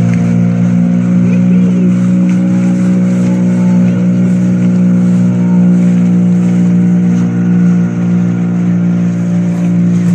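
Small boat's outboard motor running steadily at cruising speed, with water rushing along the hull.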